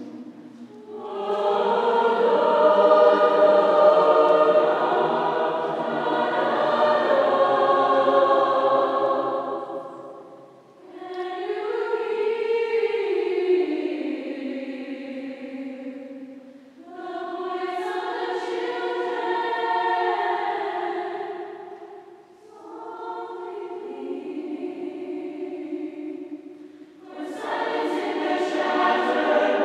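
Large mixed choir singing in long sustained phrases, breaking off briefly between phrases about every five to nine seconds.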